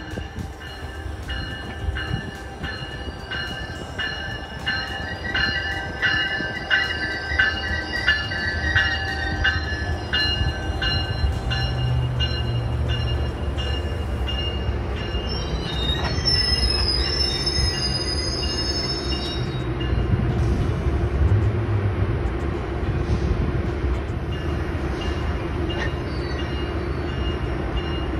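Metrolink commuter train's bilevel coaches rolling past and slowing into the station, with a steady low rumble and the clatter of wheels over rail joints. High-pitched wheel squeal comes in twice, in the middle of the passage.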